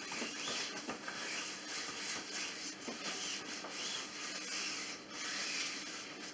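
Rags rubbing wood stain onto and off pine boards, in repeated back-and-forth wiping strokes.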